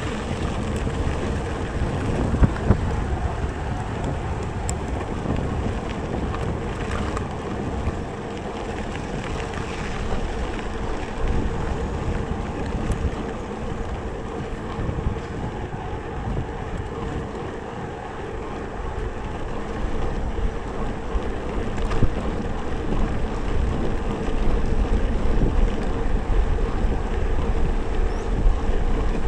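Wind buffeting the microphone of a camera on a moving mountain bike, over the steady rolling noise of tyres on dirt, with a faint steady hum and a few sharp knocks as the bike goes over bumps; the rumble grows louder in the last third.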